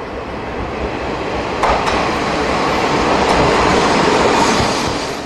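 N-gauge model train running past on the layout track. Its running noise jumps up suddenly about a second and a half in and drops back near the end.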